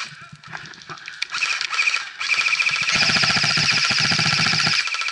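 Airsoft guns firing: a few scattered shots and snaps at first, then from about two seconds in a long, rapid full-auto burst that carries on almost to the end.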